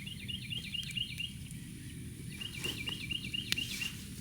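A songbird singing a fast run of repeated chirping notes, two phrases with a short gap between them, over a steady outdoor background, with a sharp click near the end.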